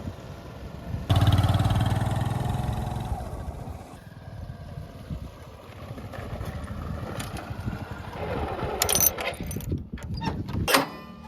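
A heavy vehicle's engine revs up sharply about a second in, then eases back to a lower, steady run. Several sharp knocks and clanks come near the end.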